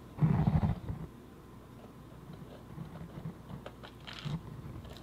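Clear plastic blister packaging being handled: a brief creaking, pitched sound about a quarter-second in as the tray lid comes off, then a few light plastic clicks and taps as fingers reach into the tray.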